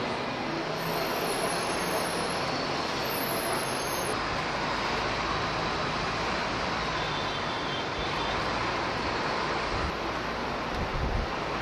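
Steady noise of city street traffic, cars and buses going by, with a brief low rumble near the end.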